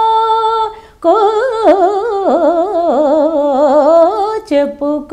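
A woman singing a Telugu lalitha sangeetham (light-classical) song unaccompanied, drawing out the syllable 'ko' in imitation of a koel's call. A held note breaks off about a second in; then comes a long, ornamented line that wavers in pitch, dips and climbs back, ending in a few short notes.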